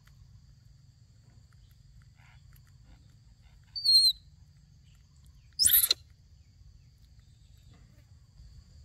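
A baby monkey squeaking twice, short high-pitched calls about four and six seconds in, the first a brief falling squeak, over a faint low hum.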